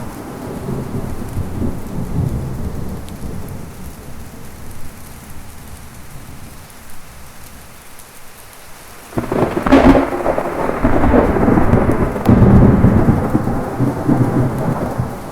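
Thunderstorm: steady rain with thunder. A low rumble fades over the first half, then a sudden thunderclap cracks about nine seconds in and rolls on loudly, swelling again a few seconds later.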